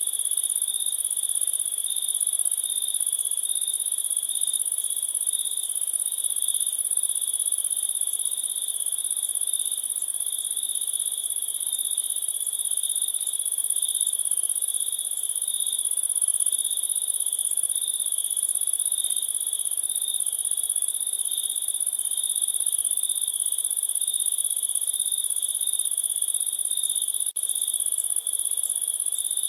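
Chorus of crickets chirping without a break, a dense steady trill at two high pitches, one shrill and one higher still. It drops out for an instant near the end.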